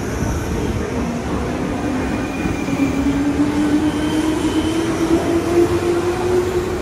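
JR 201 series electric commuter train pulling out and picking up speed: its motors give a whine that rises slowly in pitch over a steady rumble of wheels on the rails.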